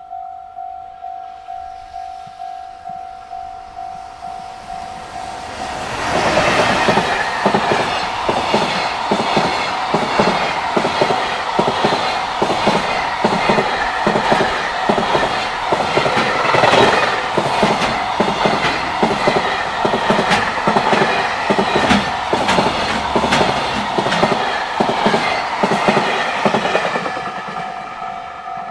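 Japanese level-crossing alarm bell ringing at about two strokes a second. About six seconds in, a JR Freight container train hauled by an EF210 electric locomotive passes close by, its wheels clattering over the rail joints and drowning the bell. Near the end the train's noise fades and the bell is heard again.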